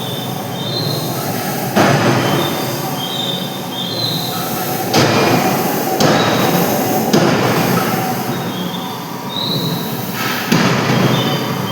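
Loud forging-shop machinery noise with short, high metallic squeals repeating throughout. The noise jumps suddenly louder four times, near 2, 5, 6 and 10.5 seconds.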